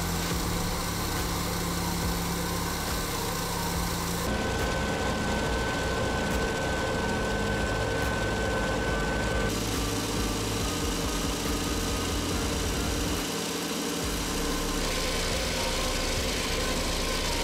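A treadmill belt and motor running under a LEGO Technic Ferrari race-car model as its wheels turn on the belt: a steady mechanical whirring hum. The hum shifts in tone a few times, at about 4, 9 and 15 seconds in.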